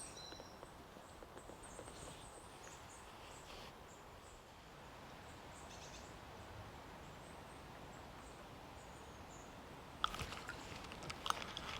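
Quiet riverbank ambience with faint high bird chirps in the first few seconds; about ten seconds in, a run of sharp clicks and knocks begins.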